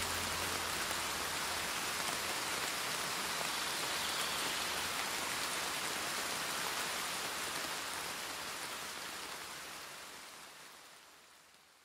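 Steady rain falling on leaves, an even patter that fades out over the last few seconds.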